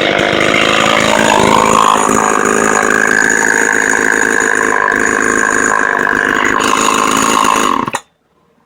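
Vintage Homelite XL-1 two-stroke chainsaw running on its first start-up after sitting unused for some time. It revs up about a second in, holds at high revs, and cuts off suddenly near the end.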